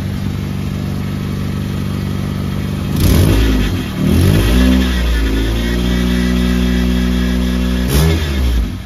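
Nissan Sentra's engine running on a replacement fuel pump, blipped up in revs about three and four seconds in, held steady, revved once more, then falling away sharply near the end. It runs with an exhaust leak.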